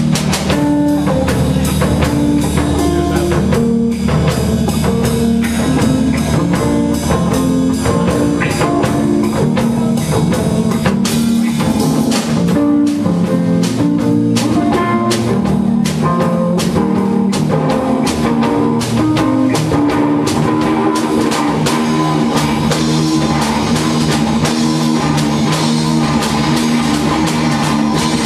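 Rock band playing live with no vocals: electric guitar over a drum kit with steady, dense drum and cymbal hits.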